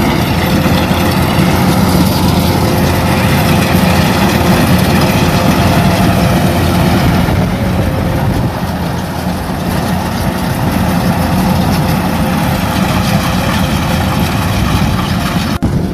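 Rice combine harvester's diesel engine and machinery running steadily, a loud, even drone. It cuts off briefly near the end.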